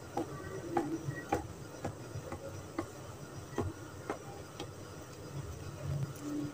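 A small knife sawing through a layered sandwich of soft bread on a plastic cutting board, giving light, irregular ticks roughly twice a second.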